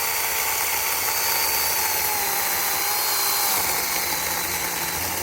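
Chainsaw running flat out while cutting into a willow tree, a steady high whine whose pitch sags a little partway through as the chain bites into the wood.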